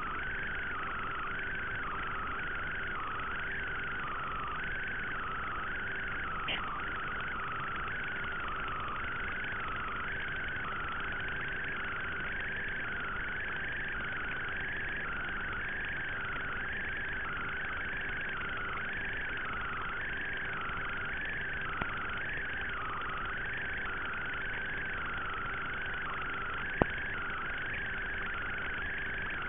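Steady electronic hum with a wavering whine that rises and falls about once every second and a half, the kind of noise carried on an analog FPV video link's audio channel while the drone sits on the ground. A few faint clicks, the sharpest near the end.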